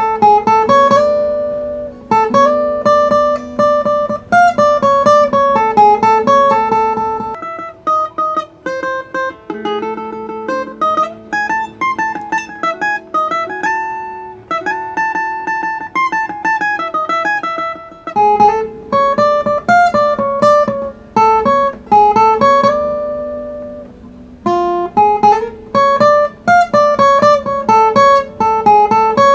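Solo plucked-string improvisation in the Ethiopian Anchihoye scale: quick melodic runs of single plucked notes over a repeated low note. The low note drops out for a couple of seconds about a quarter of the way in, then returns just past the middle.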